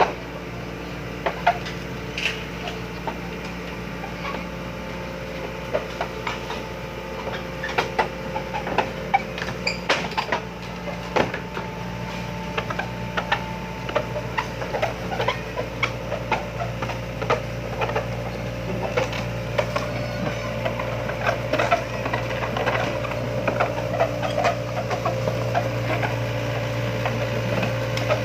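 Hitachi hydraulic excavator's diesel engine running steadily, with many irregular knocks and clanks from the machine at work. The engine's low hum grows louder about halfway through, as if under more load.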